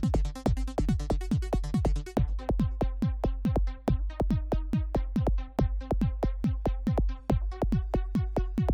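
Electronic trance/techno music: a drum-machine kick beating steadily, about four strikes a second, over a held bass and sustained synth chords. The bright high layer drops out about two seconds in.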